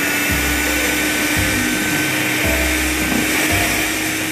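Electric hand mixer running steadily at speed, its beaters whipping hot sugar syrup and gelatin into marshmallow foam; the motor gives a constant whine.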